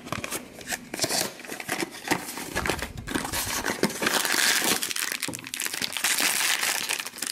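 A cardboard blind box being handled and opened, with sharp taps and rustles. From about halfway through comes a continuous crinkling as the foil bag inside is handled and torn open.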